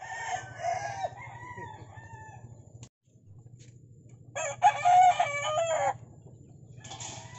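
A rooster crowing once, loud, starting about four and a half seconds in and lasting about a second and a half. Before it come fainter wavering calls over a low steady hum.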